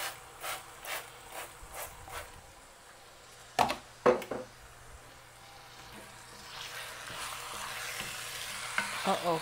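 A pump oil mister sprays about six short squirts of oil over chicken in a pot. Two loud knocks follow about three and a half and four seconds in. From about six and a half seconds in, the chicken sizzles more and more as it fries, with a few clicks of stirring near the end.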